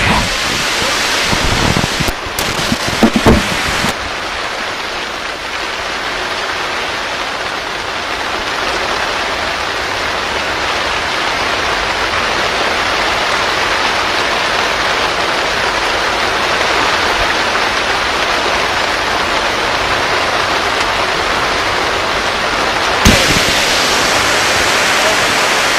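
Steady rainfall, an even hiss, with a few knocks about two to three seconds in. The rain gets louder near the end.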